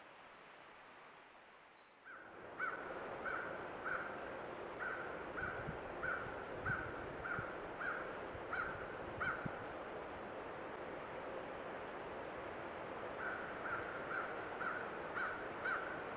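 A bird calling in a long series of short, evenly spaced calls, about two a second. The calls pause for a few seconds and then resume near the end. Under them runs a steady rush of creek water that comes in about two seconds in.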